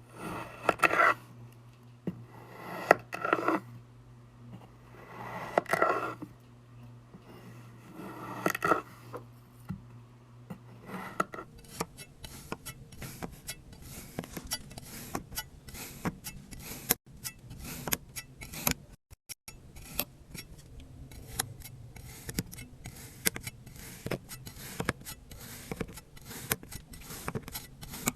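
Sand being cut and crushed close to the microphone: a few separate crunches a couple of seconds apart, then from about eleven seconds in a denser run of fine crackling and scraping.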